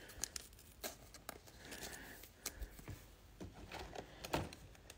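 Faint rustling and scattered light clicks of a trading card and a clear plastic card sleeve being handled.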